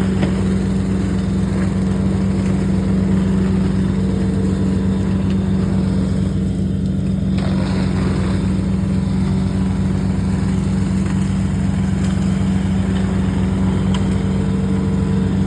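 Tractor engine running steadily at constant speed, driving a PTO-driven Shaktiman mulcher.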